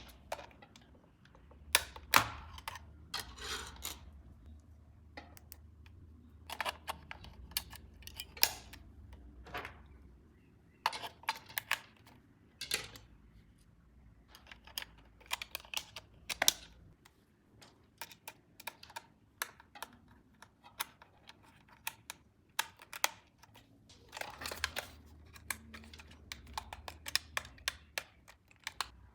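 Irregular sharp plastic clicks, taps and short rustles of hands handling the packaging and parts of a remote-control toy car, over a faint low hum.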